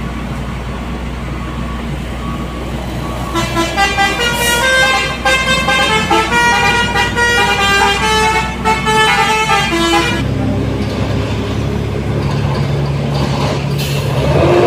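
Heavy truck engine labouring uphill under load. For several seconds in the middle a vehicle horn sounds a run of tones that step in pitch. After that a deeper, louder engine drone takes over.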